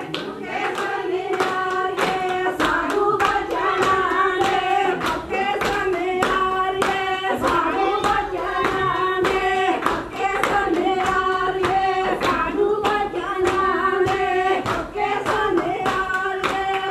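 A group of women singing together in chorus, with quick, steady hand clapping keeping the beat.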